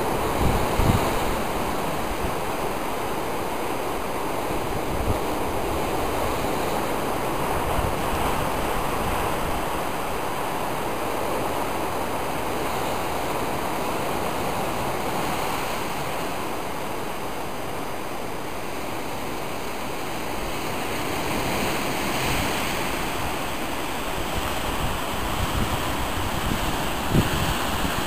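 Steady wash of sea surf breaking over rocks. Gusts of wind buffet the microphone about a second in and again near the end.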